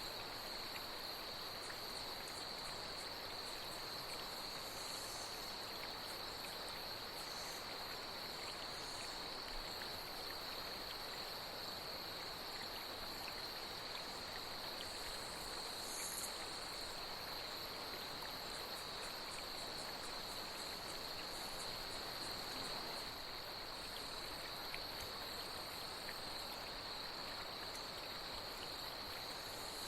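Night insects trilling steadily at one high pitch over the even rush of flowing water, with short, higher chirps now and then.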